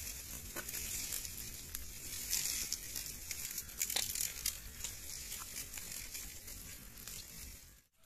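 Fire of dry palm fronds and leaves burning briskly: a steady hiss dense with sharp crackles and pops, fading out near the end.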